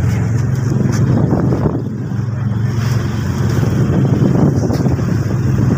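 Motorboat engine running with a steady low drone while the boat is underway.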